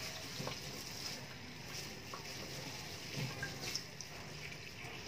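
Tap water running into a stainless steel sink and splashing over a gloved hand as it rinses and squeezes an ink-soaked sponge, with small irregular splashes over a steady rush of water.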